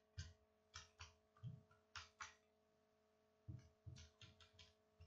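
Calculator keys being pressed one at a time: faint, short clicks in irregular runs with a pause of about a second in the middle, over a faint steady hum.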